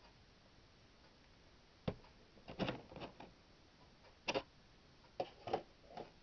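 Clear plastic display-case cover being handled and lifted off a model aircraft: a sharp click about two seconds in, then scattered plastic clicks and knocks in two short clusters.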